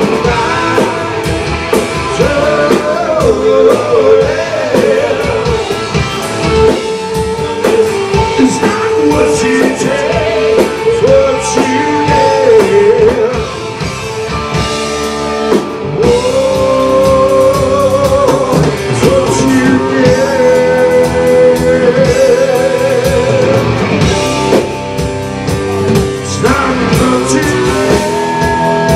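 Live rock band playing: electric guitars and a drum kit, with a lead line that bends up and down in pitch over the top.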